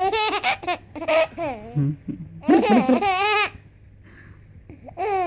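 A baby laughing: two long bursts of high, wavering laughter in the first three and a half seconds, then a short one near the end.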